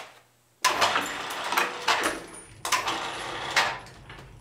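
Metal clanking and scraping from a Ridgid drill press on a tilting column as the column is tipped back on its pivot. A sudden clatter starts about half a second in, then scraping with sharp knocks several times, fading near the end.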